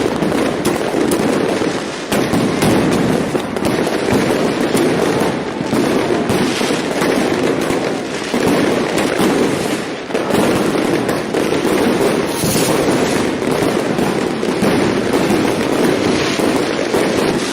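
Fireworks going off in a dense, continuous barrage of overlapping bangs and crackles, with a few brief dips in level.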